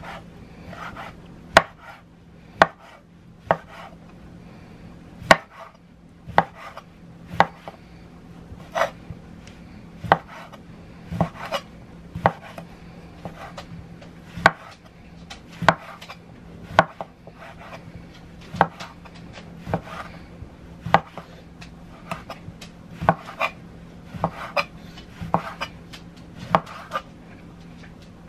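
Knife chopping vegetables on a cutting board: single sharp cuts about once a second at an uneven pace, over a steady low hum.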